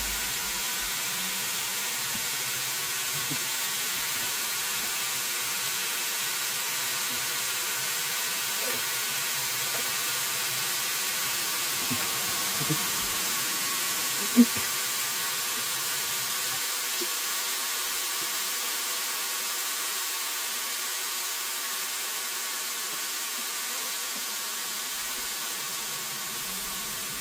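Breaded chicken strips frying in hot oil: a steady sizzling hiss with a few faint ticks, and one short sharp knock about fourteen seconds in.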